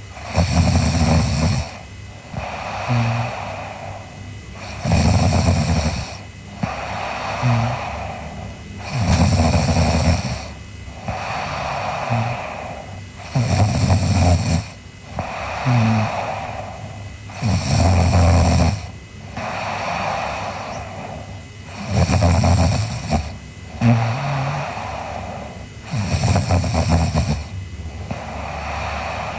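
A sleeping girl snoring in a steady rhythm: a loud, deep snore about every four seconds, seven in all. Between the snores there is a softer breathy sound and a short, low snort.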